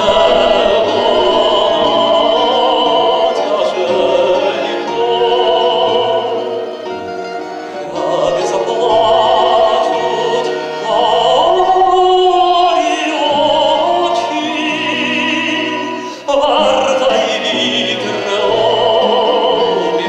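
A man singing in a classical, operatic style: long held notes with wide vibrato, in phrases separated by short breaks.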